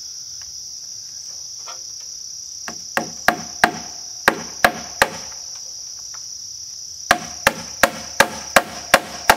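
Hammer driving nails through a steel hurricane strap into a wooden rafter: two runs of quick blows, about three a second, starting about three seconds in, with a pause of about two seconds between them.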